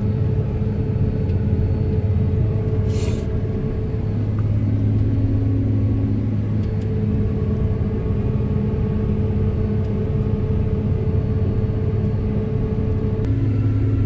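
Steady engine drone of a vehicle under way on the road, heard from inside its cab, with a short hiss about three seconds in.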